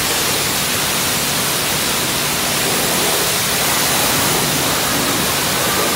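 High-pressure car-wash spray wand hissing steadily as its water jet rinses a car's painted panels.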